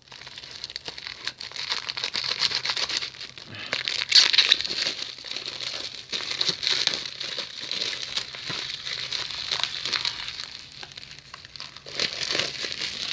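Plastic shrink-wrap on a Blu-ray case crinkling and crackling continuously with many sharp clicks as it is handled and pulled off.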